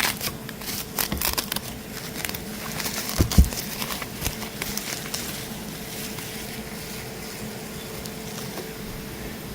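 Handling noise: rustling and scattered clicks, with one low thump a little over three seconds in, then a steady hum underneath.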